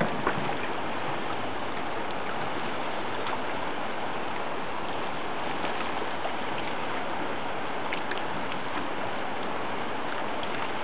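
Steady rush of fast-flowing river water around the boat, with wind on the microphone.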